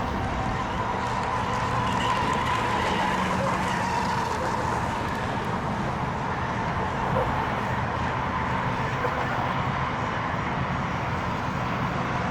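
Radio-controlled racing boats' small engines running at high revs out on the water, heard as a steady whine whose pitch wavers slightly as they go round the course.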